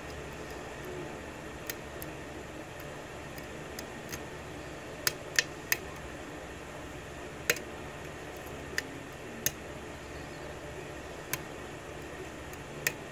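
Steel lock pick clicking against the pins of a brass 6-pin key-in-knob lock cylinder during single-pin picking: irregular sharp clicks, the loudest a quick run of three about five seconds in and another about two seconds later, over a steady background hiss.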